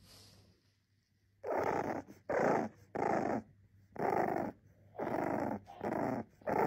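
Bulldog puppy making a run of short, rough growling grunts, about seven in a row, each about half a second long and a little under a second apart, starting after a brief quiet.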